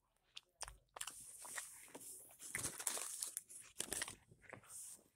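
Mouth sounds of chewing and crunching fast food close to the microphone, mixed with paper crinkling: a dense run of short crackles and clicks.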